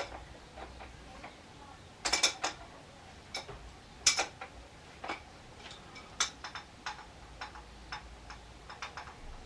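Adjustable spanner clicking and knocking against a motorcycle fork top cap as it is refitted and turned: irregular sharp metallic clicks, the loudest a quick cluster about two seconds in and single clicks about four and six seconds in.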